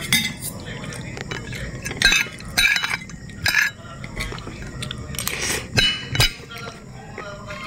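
Metal fork and spoon clinking and scraping against ceramic plates and a bowl during eating, with a handful of sharp clinks spread through.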